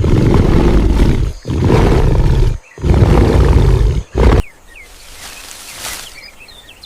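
A big cat roaring: three long, deep roars back to back, a short fourth one a little after four seconds in, then a quieter stretch.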